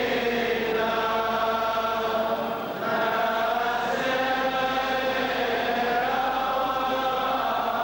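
Slow liturgical chanting by voices, long held notes sung in phrases, with a short breath-break about two and a half seconds in.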